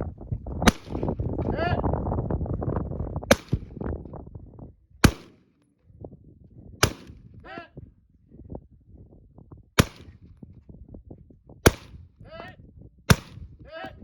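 Rifle shots fired one at a time, seven in all, about one and a half to three seconds apart, each a sharp crack. A low rumbling noise runs under the first few shots and then drops away.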